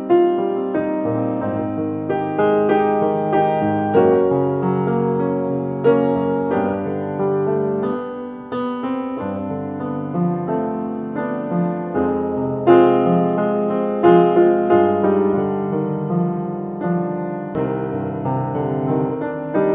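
Solo grand piano: a melody over chords, with notes struck and left to ring into one another.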